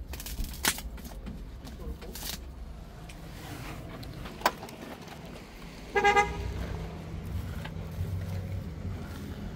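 A car horn gives one short toot about six seconds in, over a low steady hum, with a few sharp clicks earlier on.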